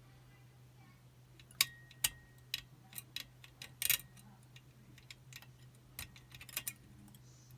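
Irregular small metallic clicks and taps from a picking wire and tension tool working the levers inside a Chubb Detector five-lever lock. The levers are being lifted under tension. The clicks are loudest around two and four seconds in, over a steady low hum.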